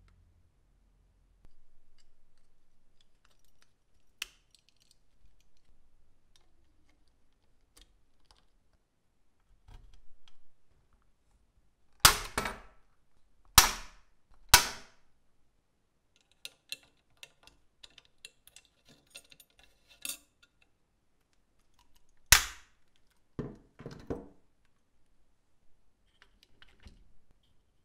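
Hand riveting tool setting rivets in a toy car's chassis: a loud sharp snap three times in quick succession about halfway through, another a few seconds later followed by two softer snaps, with light clicks of parts being handled in between.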